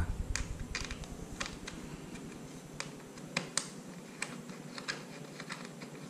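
Light, irregular clicking and ticking of a small 4 mm hex key turning in the M5 bolt of a helmet's visor plate as the bolt is being unscrewed.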